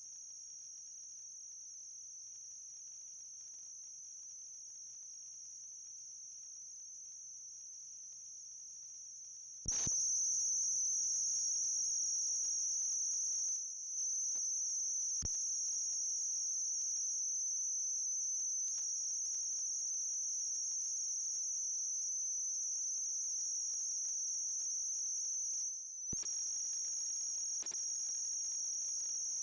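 Insects droning in a steady, high-pitched, unbroken chorus. It grows louder after a sharp click about ten seconds in, and a few fainter clicks follow later.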